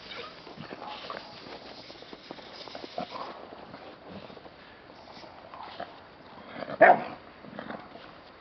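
American Staffordshire Terriers playing around a branch, with scattered small scuffling sounds and one short, loud bark about seven seconds in.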